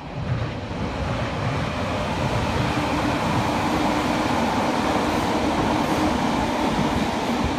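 Electric commuter train running across a railway bridge: a steady rumble of wheels on rail. It grows louder over the first second and then holds.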